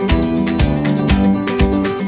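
Background music with guitar and a steady beat of about two beats a second.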